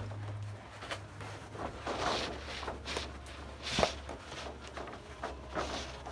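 Rustling and soft handling noises from a model-railway grass mat being spread and smoothed over a layout table, with a sharper knock a little before four seconds in. A steady low hum runs underneath.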